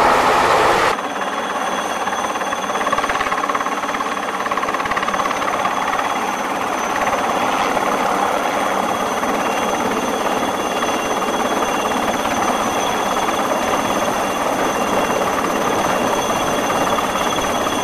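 A Seahawk helicopter's rotor and engines for about the first second. Then, after a sudden change, a small Alouette III-type turbine helicopter hovering low over a flight deck: steady rotor noise with a high, steady turbine whine above it.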